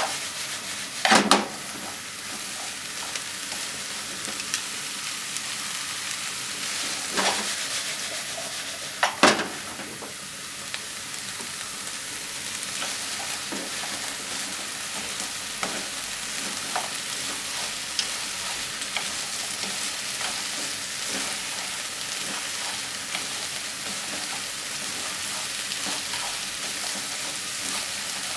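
Sliced onion, green pepper and wiener sausages sizzling in a frying pan on a gas burner as they are stir-fried with wooden chopsticks, a steady frying hiss. A few louder knocks against the pan come about a second in and twice more around seven and nine seconds, the one near nine the loudest.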